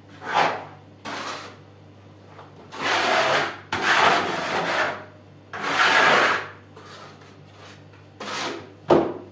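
A plastering trowel scraping wet plaster in a series of separate strokes, each a half to one second long, first against the wall and then against the bucket and float while plaster is loaded. A short sharp knock comes near the end.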